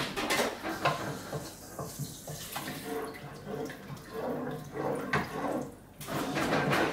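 Wooden spoon stirring water in a saucepan, the liquid sloshing in irregular swishes.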